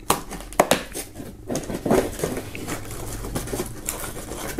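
A cardboard advent calendar door being pressed in and torn open by hand, giving a run of sharp clicks and crinkling cardboard.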